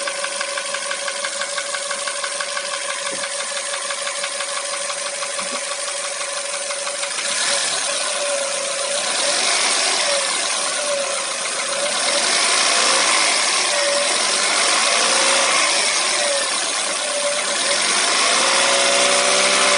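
Hyundai Solaris petrol engine idling with a fast, even knock, then revved several times from about seven seconds in, its pitch rising and falling with each blip. The knock is the fault being checked, heard while the engine runs steadily.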